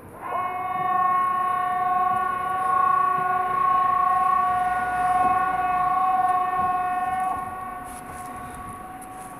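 Outdoor public warning siren sounding the 'Important Public Announcement' signal as a test: one loud steady tone at unchanging pitch for about seven seconds, then dying away near the end.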